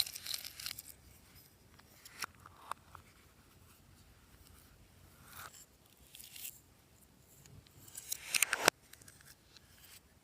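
Glossy slime being squished and worked by hand: a few short wet crackles and clicks, the loudest and longest cluster about eight seconds in, cutting off sharply.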